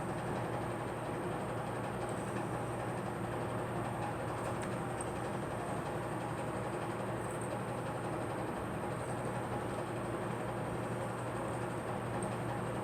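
Steady, unbroken rumbling background noise at an even level, with no coughs or other sudden sounds.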